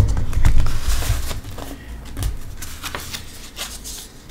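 A sheet of vinyl being worked and cut by hand on a cutting mat: irregular scraping, rubbing and light clicks. Heavy low bumps from pressing on the table in the first second and a half, then quieter handling.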